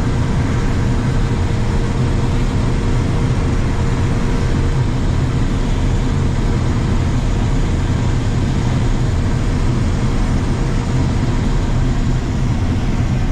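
Challenger 560C combine running steadily under load while harvesting corn and unloading grain: a constant low drone with a faint steady whine and no change in pitch.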